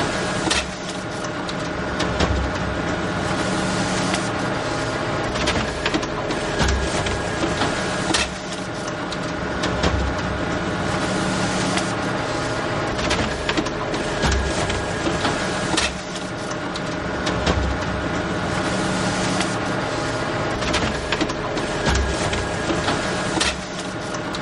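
Photocopier running through copies: a steady mechanical whir with frequent clicks, in a cycle that repeats about every seven to eight seconds.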